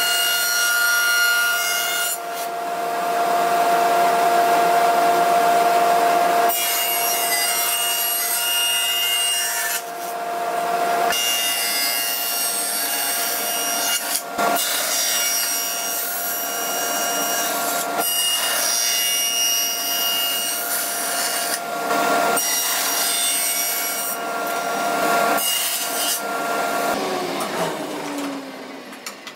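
Table saw running and ripping wood, with a steady motor whine under the changing cutting noise. Near the end the saw is switched off and the blade spins down with a falling tone.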